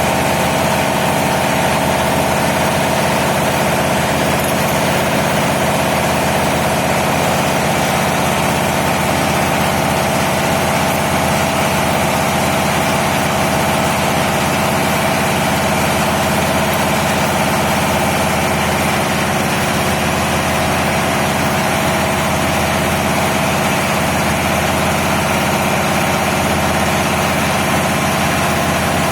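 Steady, loud drone of running diesel machinery, typical engine-room noise: a constant whine over a fast, even low hum that does not change.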